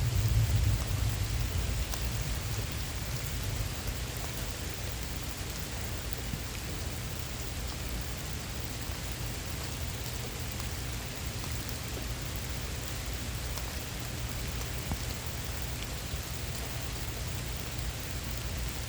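Heavy rain falling steadily, with the tail of a low thunder rumble dying away over the first few seconds.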